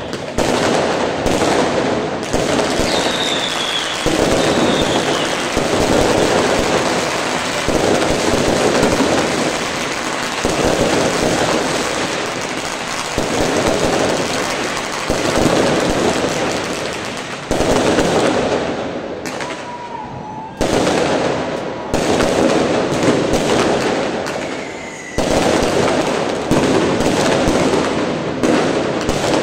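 Fireworks and firecrackers going off in a dense, continuous barrage of crackling bangs and pops that swells and eases every second or two. A few short whistles falling in pitch cut through it.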